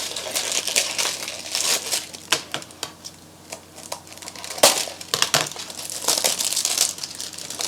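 Plastic packaging of a blind-box toy being crinkled and torn open by hand, an irregular crackling with a few sharp snaps partway through.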